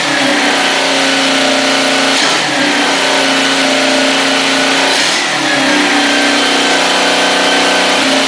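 Kawasaki KZ650 air-cooled inline-four engine running, the throttle blipped briefly about two seconds in and again about five seconds in, settling back to a steady run each time. The engine has just been adjusted, and its note is steady and less loud than before the fix.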